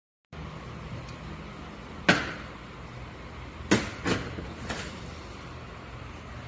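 Small metal parts being handled on a steel workbench: four sharp knocks and clicks, the loudest about two seconds in, over a steady low hum.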